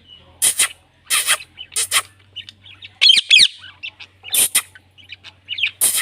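Indian ringneck parrot calling: about five short, harsh, raspy screeches mixed with quick high chirps, with a fast run of falling chirps about three seconds in.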